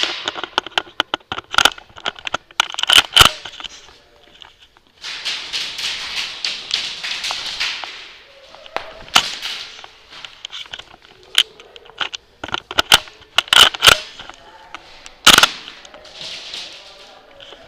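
Airsoft guns firing: scattered sharp pops and short strings of shots, with a rapid run of shots lasting about three seconds about five seconds in.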